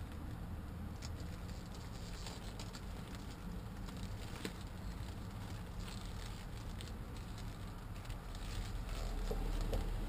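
Stiff PVC coat crinkling and rustling as the wearer moves, with wind rumbling on the microphone and a gust swelling near the end.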